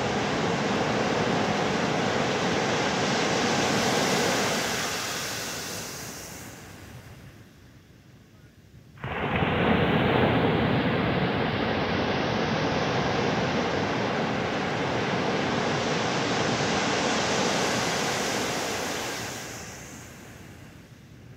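Surf washing up a beach: the noise of one wave fades over several seconds, then another breaks suddenly about nine seconds in and washes for about ten seconds before fading.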